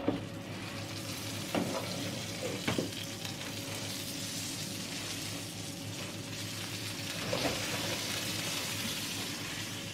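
Meat-topped pastrmajlija flatbreads sizzling steadily on the steel tray of an electric oven heated to 350 degrees, with a few light knocks as the metal tray is handled.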